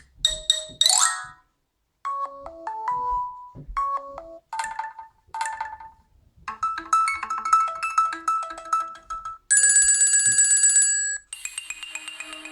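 Nokia 6 stock ringtones previewed one after another from the phone: a string of short electronic chime and melody snippets, each cut off after a second or two. Near the end comes a fast, high trilling ring, and then another chime tone starts.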